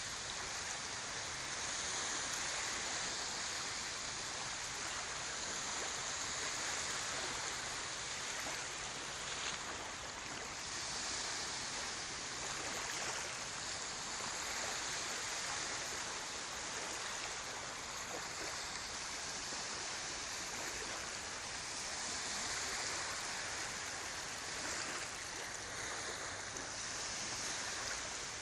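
Small lake waves breaking and washing on the shore of Lake Geneva: a steady, hissing splash that swells and eases every few seconds, with no single hard crash.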